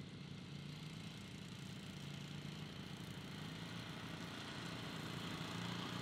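ATV towing a tow-behind field mower, its engine running steadily while mowing, a little louder near the end.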